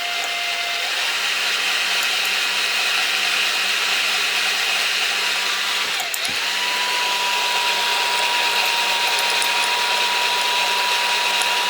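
Electric drill running steadily with a 4 mm bit, boring into aluminium. Its motor whine dips briefly about halfway through and then holds at a higher pitch, and it stops right at the end.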